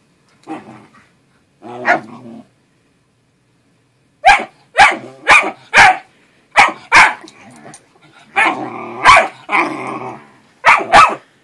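Dogs play-fighting, a Great Dane puppy and an older dog: two short growls in the first couple of seconds, then from about four seconds in a run of sharp barks, with growling between barks near the end.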